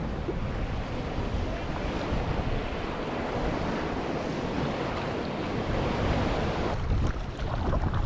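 Ocean surf rushing and washing around the kayak, with wind rumbling on the microphone; the rush drops away abruptly near the end.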